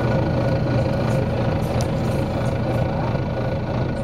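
Volvo B9TL bus's nine-litre six-cylinder diesel engine running steadily, a low hum with a steady higher tone over it.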